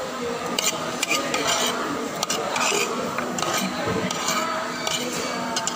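Cutlery scraping and clinking against a plate while eating, in short irregular clicks over a faint steady hum.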